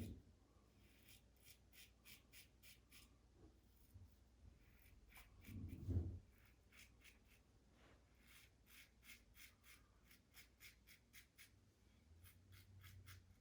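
Blackland Vector safety razor cutting through stubble in short quick strokes: a faint scratching several times a second, in runs. A dull low bump about six seconds in is the loudest sound.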